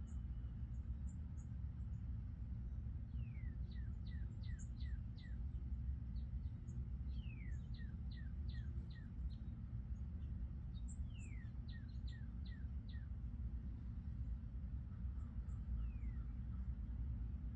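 A songbird singing the same short phrase three times, each a falling slur followed by a quick run of about five notes, with a brief start of it again near the end. Very high, thin chirps come here and there, over a steady low rumble of outdoor ambience.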